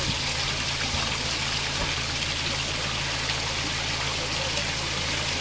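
Steady rush of water flowing into a canal lock chamber as it fills through paddles that have been opened only part of the way.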